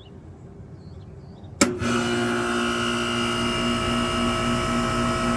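2008 Goodman heat pump outdoor unit starting up: it comes on abruptly with a sharp clunk about one and a half seconds in, then the compressor and fan run with a steady hum and whoosh.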